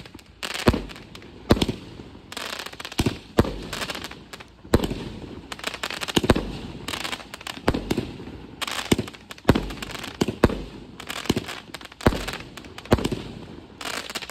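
Legendary Fireworks' Treasure Island 20-shot fireworks cake firing shot after shot. It begins abruptly, with a sharp report about once a second and a rough hiss between the reports.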